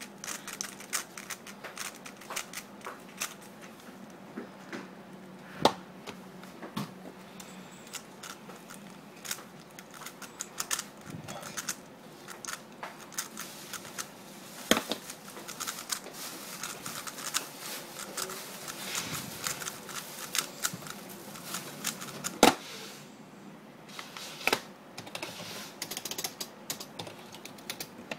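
A 3x3 speedcube's plastic layers clicking and clacking as it is turned fast, largely one-handed, in a near-continuous stream of small clicks with a few louder, sharper knocks.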